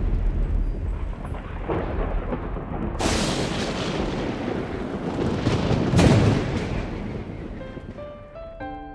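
Dramatic TV score: a dense rumbling wash with two sudden booming hits, about three and six seconds in, that slowly die away. Soft piano notes come in near the end.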